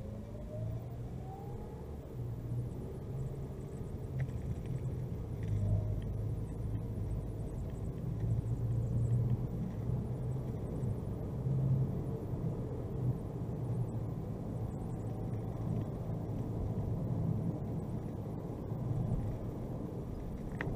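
Steady engine and road rumble of a car driving at speed on a highway, heard from inside the cabin, with a faint rising whine in the first two seconds.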